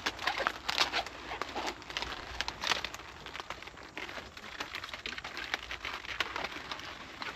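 Crisp plant leaves crackling and rustling as leafy crops are handled and picked, with a quick run of sharp crunchy snaps.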